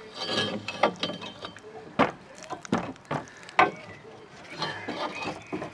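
Irregular sharp metallic knocks and clicks, about half a dozen hits, as the rear shock absorber strut of an Alfa Romeo GT is wriggled and pulled free of the rear suspension.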